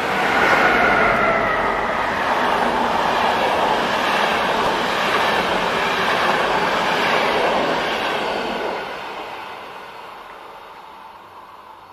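Passenger coaches of a train hauled by a Siemens Vectron class 193 electric locomotive rushing past at speed, the wheels running on the rails, with a faint falling whine in the first few seconds. The noise fades away after about eight and a half seconds as the last coach goes by.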